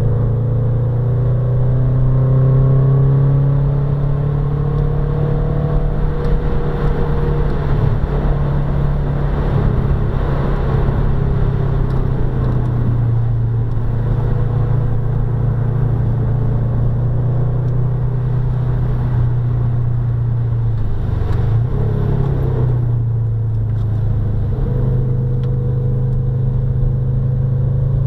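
Subaru Impreza's flat-four engine running hard on a race circuit, its steady drone rising and falling gently in pitch, with a brief break in the note about two-thirds of the way through.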